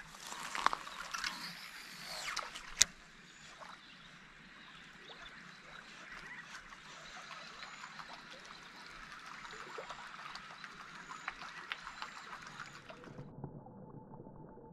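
Steady trickle and flow of river water. A few light knocks come in the first three seconds, ending in one sharp click. Near the end the higher hiss cuts off abruptly.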